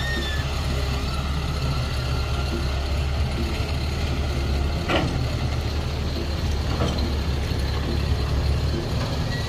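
Hydraulic excavator's diesel engine running steadily with a deep rumble while it works, with a couple of sharp knocks about five and seven seconds in.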